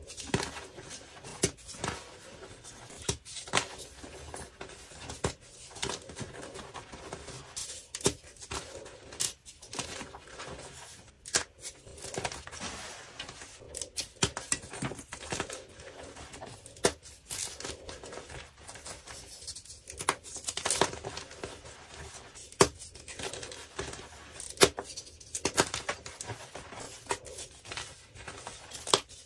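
Dyed gym chalk blocks crushed and crumbled in bare hands: dry, crunchy crackling broken by many irregular sharp crunches as the blocks break apart and the powder is squeezed.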